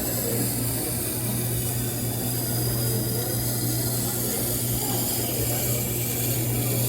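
Tormek T-8 water-cooled sharpening machine running: a steady motor hum with the wet noise of its grinding stone turning through the water trough.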